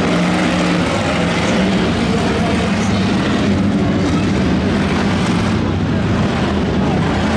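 Racing car engines running together in a steady, loud din.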